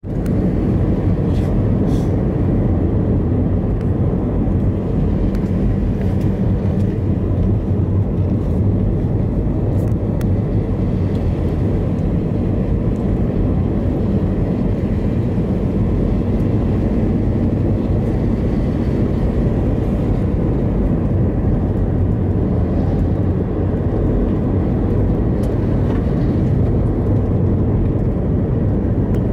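Steady low road and engine noise inside the cabin of a car driving at speed on the highway.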